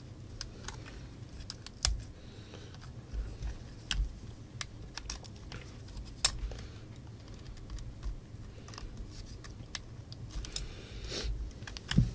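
Metal tweezers clicking and tapping against the plastic housing and small wire connectors inside an opened JBL Flip 4 speaker, as a connector is pushed into place: irregular light clicks, with a short rustle of handling near the end.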